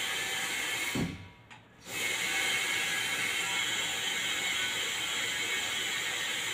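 Steady hiss of a hose jet clearing a clogged air-conditioner drain line. About a second in it cuts off with a thump and comes back under a second later.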